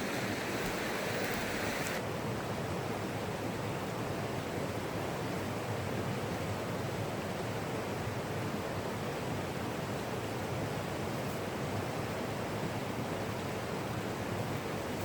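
Steady rush of a creek or river flowing, an even wash of water noise; a brighter, hissier layer drops away suddenly about two seconds in.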